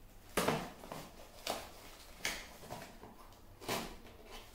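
Cardboard box being cut open by hand: four short scraping strokes, roughly a second apart.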